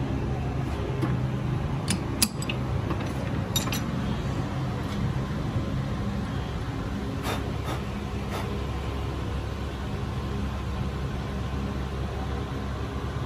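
Steady low hum of workshop machinery, broken by several sharp metallic clinks as tools and a brass workpiece are handled at a metal lathe.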